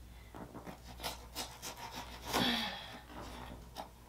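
Cardboard box and packaging rustling and scraping in a run of short strokes as items are dug out of a shipping box, loudest a little past halfway.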